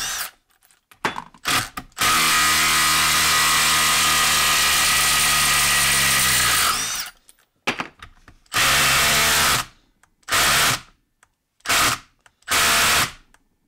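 Milwaukee cordless impact driver hammering as it backs a long bolt out of a wood block. After a few short blips it runs unbroken for about five seconds, stops, then fires in four or five short bursts.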